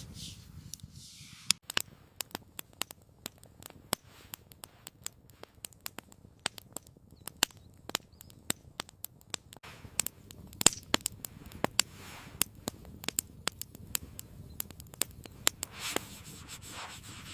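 Wood fire crackling, with many sharp, irregular pops and snaps over a soft low rush of flame.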